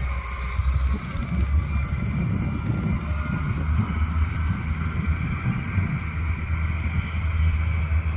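A vehicle engine runs steadily with a heavy low rumble, and wind buffets the microphone.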